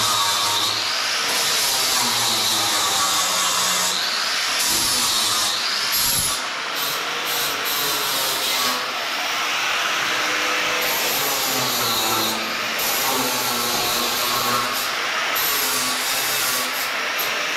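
Angle grinder with a blending disc grinding rust off steel down to bare metal, ready for welding. Its high whine dips and recovers several times as it is pressed into the work.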